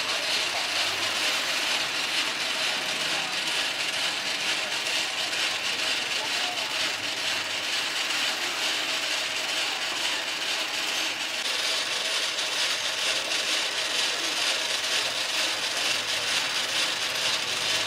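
Chain-driven rotisserie that turns skewers over a charcoal grill, running: its roller chain and sprocket skewer holders rattle and click in a steady, dense stream, with a faint steady hum.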